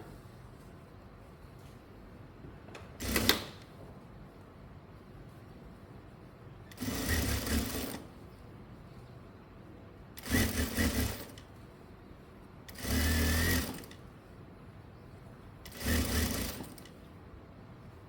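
Sewing machine stitching in short runs. The first burst, about three seconds in, is brief; it is followed by four runs of about a second each, with pauses of a couple of seconds between them.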